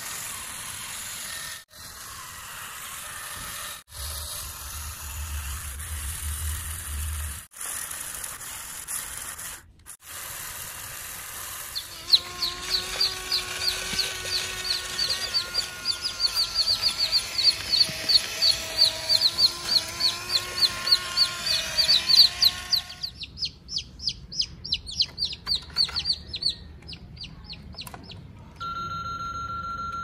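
Chickens clucking and peeping in rapid runs of high chirps, many a second, through the middle stretch after a plain hiss broken by abrupt cuts. A steady electronic beep comes near the end.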